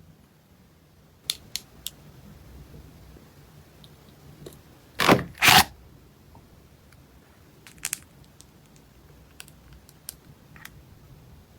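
Packaging being handled during an unboxing: scattered light clicks and taps, with two loud bursts of paper or plastic packaging noise, one right after the other, about five seconds in.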